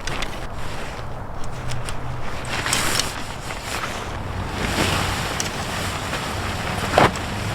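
Strong wind gusting and buffeting the microphone, swelling and easing. Near the end there is a single sharp crack.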